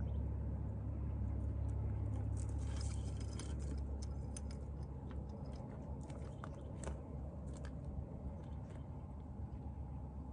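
Steady low wind rumble on the microphone, with small clicks and light jingling from a fishing rod and reel being handled and cast: a dense run of clicks about two to four seconds in, then scattered single clicks.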